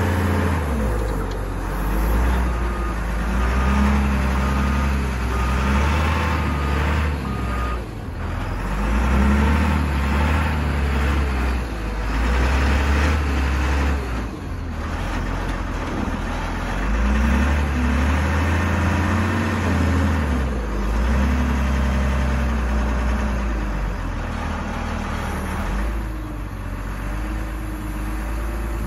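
Caterpillar IT28G wheel loader's diesel engine revving up and down in repeated swells under load as it digs, backs away and lifts its bucket. A short run of reversing-alarm beeps sounds about three seconds in.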